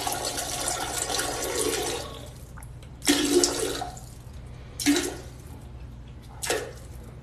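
Toilet flushing: a loud rush of water that dies away about two seconds in, leaving a quieter flow. Three short loud bursts of noise follow.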